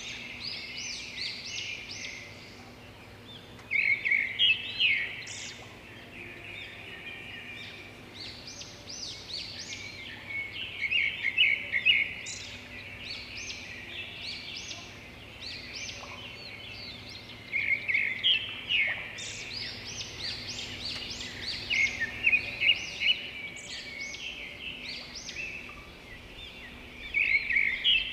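Small birds chirping in quick, high, repeated phrases that come in clusters every few seconds, over a faint steady hum.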